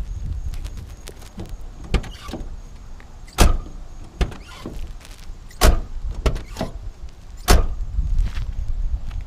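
Ford Crown Victoria's doors being shut, three loud slams about two seconds apart with a smaller knock before them. Between the slams are fainter short creaks of the body squeak that the owner traces to dry hood hinges.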